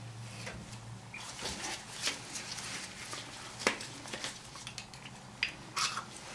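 Light scraping and small clicks of a pick working the square-cut piston seal out of a Mazda 3 rear brake caliper's bore, and of the caliper being turned over in gloved hands, with one sharper click a little past halfway.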